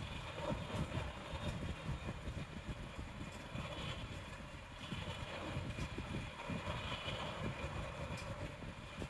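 Faint handling noise with a few light clicks as a small screw is fastened to hold an NVMe SSD in its M.2 slot on a desktop motherboard.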